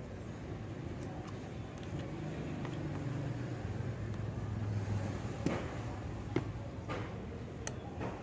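Low rumble of a motor vehicle swelling and fading about halfway through, with several sharp clicks near the end as plastic pry cards and a phone are handled and set down on a tabletop.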